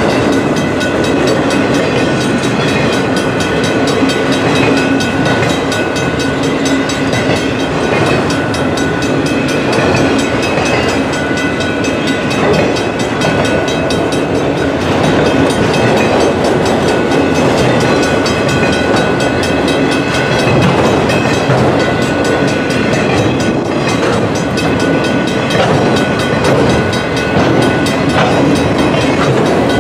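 Slow-moving freight train of autorack cars rolling past: a steady rumble and rattle of steel wheels on rail and car bodies, with a thin high tone running through it.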